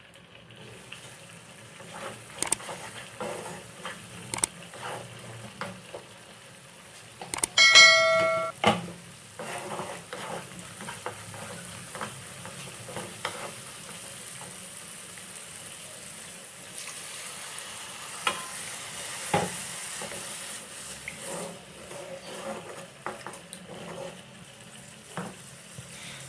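Spiced curry masala sizzling in a pan, with scattered small clicks of a utensil against it. About eight seconds in, a metal pot or utensil rings out once, the loudest sound.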